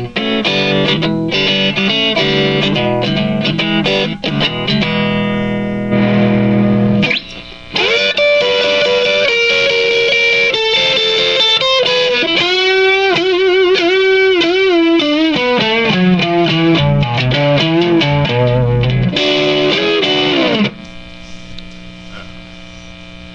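Stratocaster played through a Fender Vibro Champ XD tube amp on its high-gain crunchy tweed voicing, with no overdrive pedal: overdriven lead lines with string bends and vibrato. The playing stops near the end, leaving only the amp's hum.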